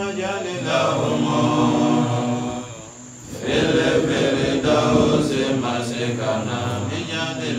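A man's solo voice chanting a religious recitation, drawn-out held notes with a breath pause about three seconds in.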